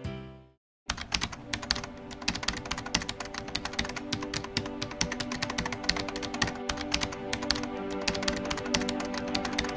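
Rapid keyboard typing sound effect, many fast clicks a second, over steady background music; it starts about a second in after a brief silence.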